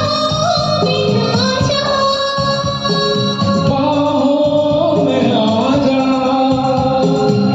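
A woman singing a Hindi film song in held, sustained notes over a karaoke backing track.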